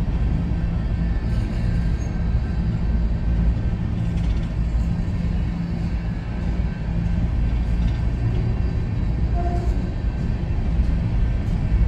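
Coal train cars rolling slowly past: a steady low rumble of steel wheels on the rails, with a low hum and faint clicks from the wheels and rail joints.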